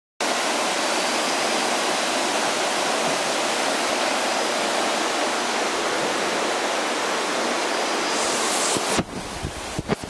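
A steady, dense rushing noise that cuts off suddenly about nine seconds in, followed by a few sharp clicks.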